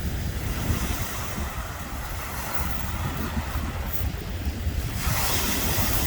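Wind buffeting the microphone, with a low flickering rumble under a steady hiss. The hiss swells brighter about five seconds in, like a gust.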